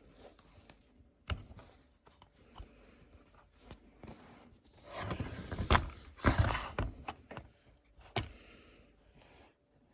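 Handling noises: a few sharp clicks and knocks, with a louder stretch of rustling and scraping about five to seven seconds in.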